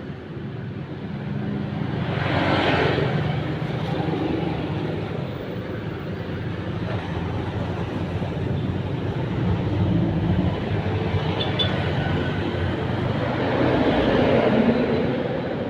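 Motor traffic running past as a steady rumble, swelling louder about two seconds in and again near the end as vehicles go by.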